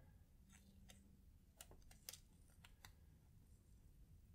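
Near silence, broken by a handful of faint ticks over the first three seconds as thin plastic transfer film is peeled slowly back off an adhesive watch skin.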